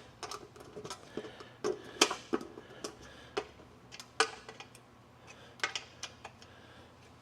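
Irregular sharp metallic clicks and taps as bolts and nuts are handled and fitted to an engine's tappet cover, about a dozen ticks spaced unevenly and louder in the first half.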